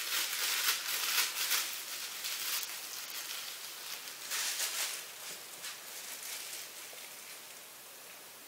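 Crinkly rustling of clear plastic being handled, in bursts over the first few seconds and again briefly in the middle, fading to a steady hiss near the end.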